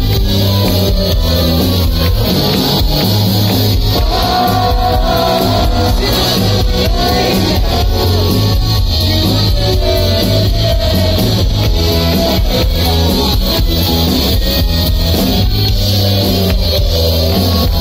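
Live rock band playing loud: electric guitar, bass and drums with a male lead vocal, heard through the stage sound system from within the audience.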